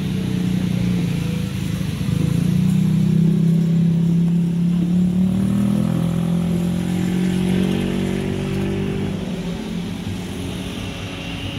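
A motor engine running steadily with a low drone, its pitch rising slightly midway and easing off near the end.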